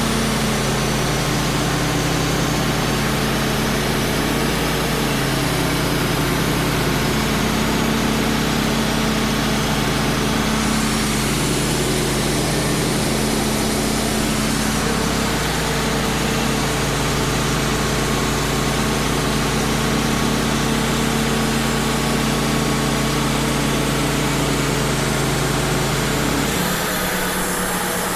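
Wood-Mizer LT35 band sawmill running steadily as its band blade cuts through an oak log, the blade worn and on its last use. Near the end the deep engine note drops away and the pitch shifts.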